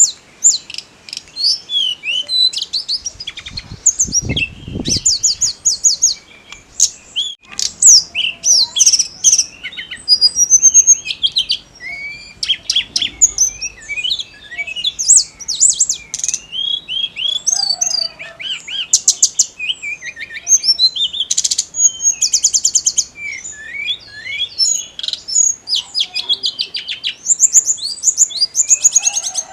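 A tledekan gunung singing a long, continuous, fast song of chirps, slurred whistles and rapid rattling trills, high-pitched and almost without pause. A brief low rumble comes about four seconds in.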